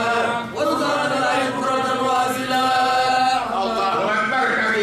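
Chanting: a voice holding long, drawn-out notes a second or two at a time, with short breaks between phrases about half a second in and again near three and a half seconds in.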